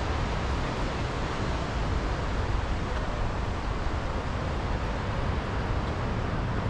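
Surf from waves breaking on a beach, heard as a steady wash of noise, with low wind rumble on the microphone.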